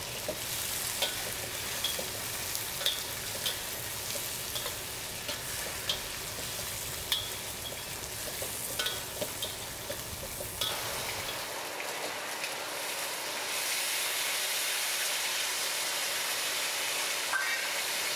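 Pork belly cubes sizzling in oil in a hot wok while a metal spatula stirs them, its edge clicking and scraping on the wok about once a second. Around two-thirds of the way through, the clicking stops and the sizzle settles into a steadier, slightly louder hiss.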